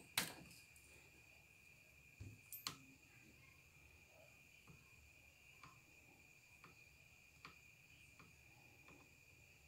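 Near silence: faint handling of solder wire being wound around a soldering-iron tip, with a sharp click just after the start, a couple of soft knocks about two seconds in and scattered faint ticks. A faint steady high tone runs underneath.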